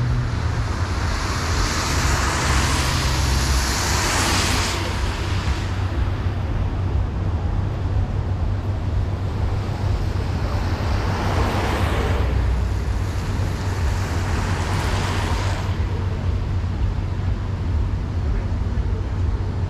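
A car driving on a rain-wet street: a steady low hum of engine and road noise, with two swells of tyre hiss from the wet road surface. The first swell starts about a second in and lasts about four seconds; the second starts about ten seconds in and lasts about six.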